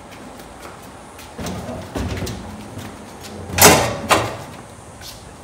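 A SpitzLift truck-bed crane swinging round under a hanging Honda EU7000is generator as it is pushed by hand: its metal pivot creaks and groans, with clunks from the load. The noise comes in several short bursts, the loudest about three and a half seconds in, then a sharp knock near the end.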